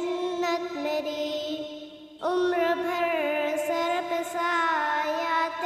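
A young child singing a slow, unaccompanied song about a mother, with long held notes. One phrase fades out about two seconds in, and the next starts right after.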